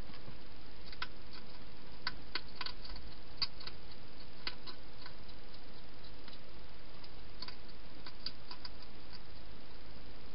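Wild hedgehog eating from a bowl inside a plastic feeding station: irregular crunching clicks, some in quick clusters, over a steady hiss.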